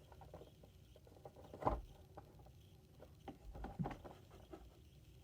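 Light handling noises: a few scattered soft taps and knocks, the loudest about a second and a half in.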